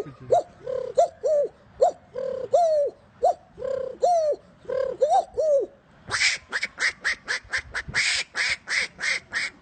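A man's vocal imitation of birds: a string of short, arched cooing calls like a dove's, then about six seconds in a fast run of harsh, quack-like calls at about four or five a second.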